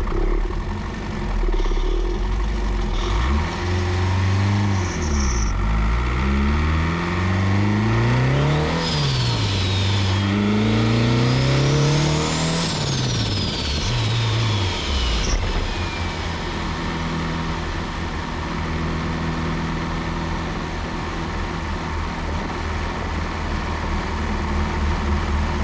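Turbocharged Honda B16 four-cylinder engine revving up and dropping back three times, with the GTX3582 turbo's whistle climbing with the revs and sliding down as they fall. After that the engine settles to a steady low run.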